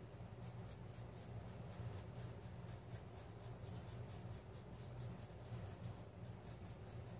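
Pencil scratching on sketch-pad paper in short, quick shading strokes, about four a second. It is faint, over a low steady hum.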